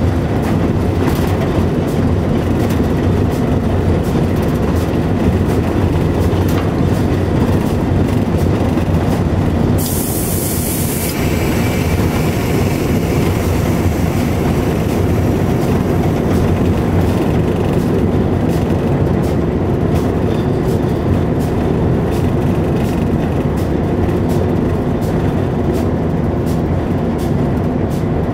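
Locomotive cab during a run along the track: a steady rumble of the moving engine and wheels on the rails. About a third of the way in, a short sharp hiss lasts about a second and a half.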